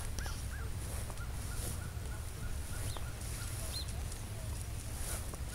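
Birds calling in a quick run of short, rising-and-falling notes that die away about three seconds in, over a steady low rumble.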